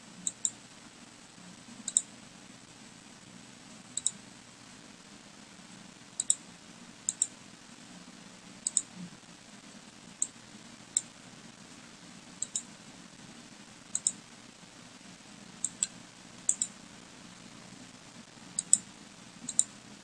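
Computer mouse clicking: sharp single clicks and quick pairs of clicks at irregular intervals, every second or two, over a faint steady hum.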